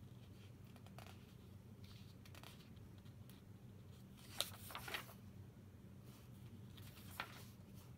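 Paper pages of a paperback book being turned by hand: a couple of short crisp flicks and rustles about four and a half to five seconds in, and a lighter one near seven seconds, over a faint low hum.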